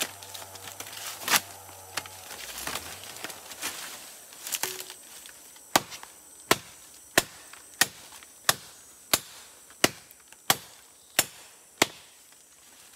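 Machete chopping into wood: a couple of scattered blows, then a steady run of about ten sharp strikes, roughly one every two-thirds of a second.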